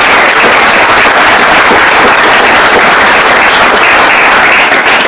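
Audience applauding: many people clapping together, steady and loud.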